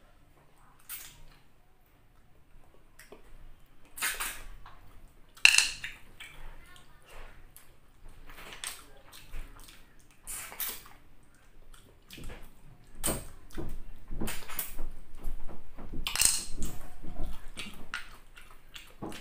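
Cooked snails in coconut-milk sauce being sucked out of their shells: short, sharp wet slurps at irregular intervals, with a denser, louder run of slurps in the second half.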